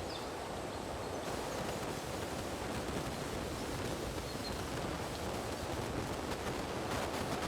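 Strong wind blowing through trees: a steady rustling rush that grows hissier about a second in.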